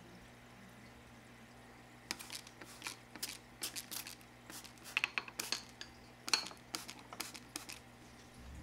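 Water squirted into a glass terrarium jar from a long curved-nozzle bottle, in a run of short, irregular spritzes and light clinks, about two or three a second, starting about two seconds in and stopping near the end.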